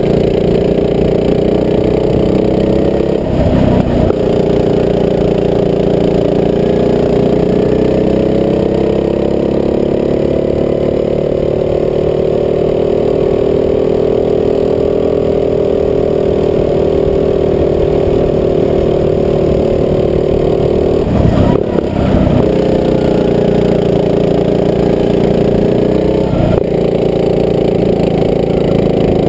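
Rental go-kart engine running on the track, heard from on board. Its note slowly rises and falls, with brief breaks about three, twenty-one and twenty-six seconds in.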